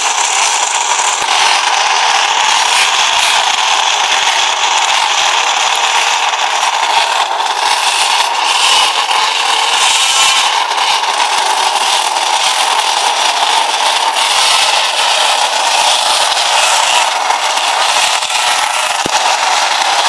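Many pocketbike engines, small two-strokes, running and being revved together: a loud, steady mass of high-pitched engine noise with pitches rising and falling within it.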